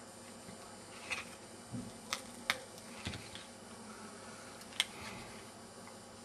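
About half a dozen small sharp clicks and crackles, irregularly spaced, as a plastic card is worked under the cracked touchscreen glass of an Alcatel One Touch 918D, prying it up off its adhesive.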